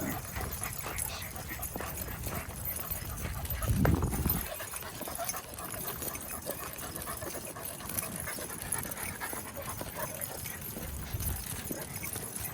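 Footsteps of a walker and a pack of dogs out on a walk, with faint dog sounds. A low rumble runs through the first few seconds, loudest about four seconds in, then drops away.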